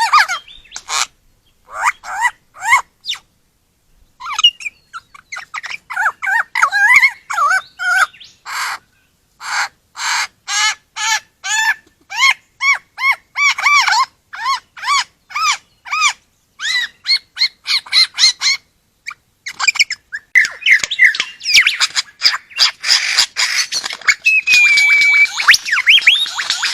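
A bird calling loudly in a long run of short, harsh notes, repeated about twice a second, that become a denser chattering near the end.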